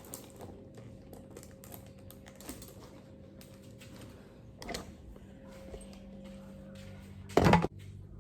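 Scattered light clicks and taps from small objects being handled, over a faint steady hum, with one loud thump about seven and a half seconds in.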